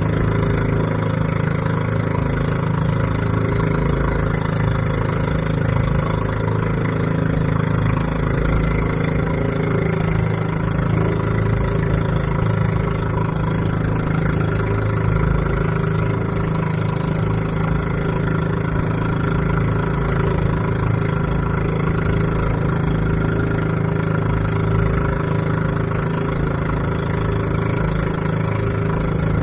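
Small fishing boat's engine running steadily under way, an even drone with a noisy hiss on top.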